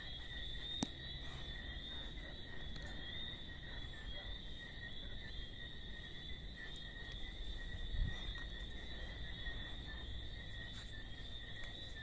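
Steady night chorus of calling insects or frogs, a continuous high trill at two pitches that never lets up. A sharp click comes a little under a second in and a low thump about two-thirds of the way through.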